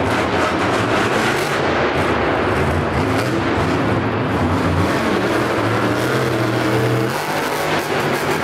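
Dragon monster truck's engine running loud and hard under throttle, a steady dense mechanical sound that shifts in pitch and eases slightly near the end.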